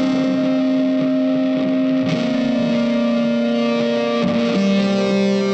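Background music: guitar playing held notes, with the notes changing about two seconds in and again near the end.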